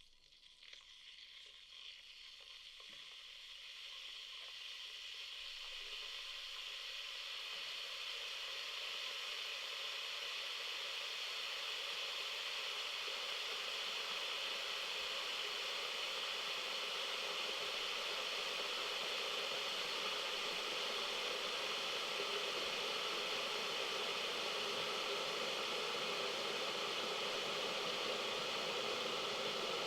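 Electric kettle heating water: a hiss that grows louder over the first several seconds, then holds steady.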